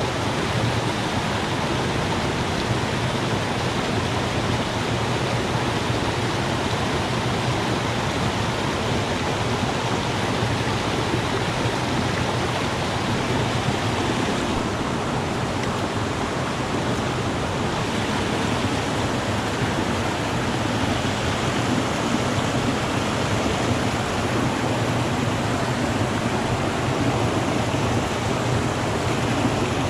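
Rocky mountain stream rushing over boulders and small cascades: a steady, unbroken wash of water noise.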